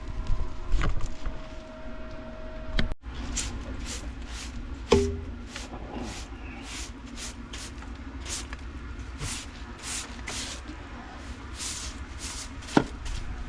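Footsteps crunching on rough ground, a regular run of short scraping steps about one or two a second, with a single sharp knock about five seconds in.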